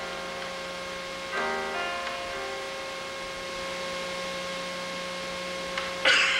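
Sparse music for the dance over a steady hum: a single struck, piano-like note rings out and fades about a second and a half in, and a sharp, loud percussive hit lands near the end.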